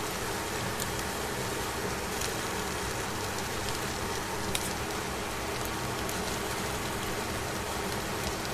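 Mackerel fillets sizzling steadily on aluminium foil in a hot pan, with a few faint ticks and pops, one a little sharper about halfway through.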